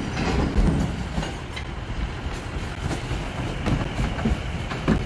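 Garbage being emptied from a trash can into a dumpster: a continuous rattling rumble with many small clatters.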